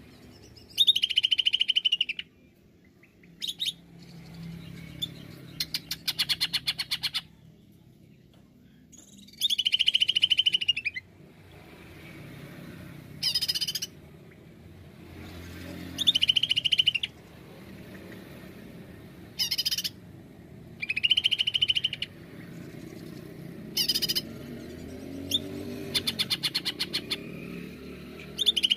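Cucak ijo (greater green leafbird) singing in loud bursts of a second or two, every few seconds. It mixes fast strings of sharp ticking notes with whistled phrases that fall in pitch.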